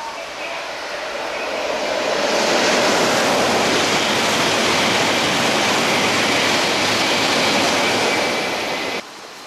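E7 series Shinkansen bullet train passing through a station at high speed on rain-soaked track: a loud rushing noise of wheels, air and thrown-up water spray. It builds over about two seconds, holds steady, and cuts off abruptly near the end.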